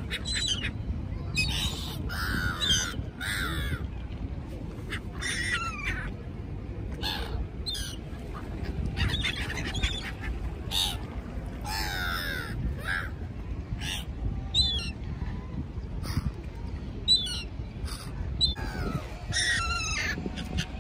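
A flock of black-headed gulls calling: short, repeated cries, many falling in pitch, several birds overlapping, over a steady low rumble.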